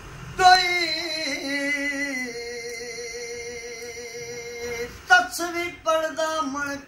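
A man singing a Punjabi kalam unaccompanied. About half a second in he enters on a high note that slides down and settles into one long note held with a wavering vibrato for about four seconds, then sings a few short phrases near the end.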